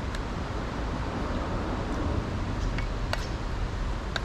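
Steady background noise with a low rumble, broken by a few faint short clicks.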